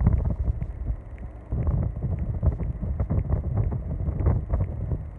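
Wind buffeting the microphone in the open back of a moving pickup truck: a gusty low rumble that keeps rising and falling, mixed with the truck's road noise.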